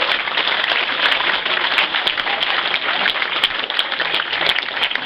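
A crowd applauding, many hands clapping steadily, in response to a £2,000 bid being called at auction.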